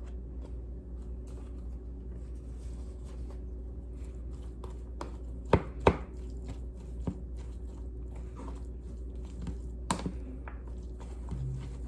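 A spoon working mayonnaise into chicken salad in a bowl: soft scraping ticks, with a few sharper knocks of the spoon, two close together about halfway through and one near the end.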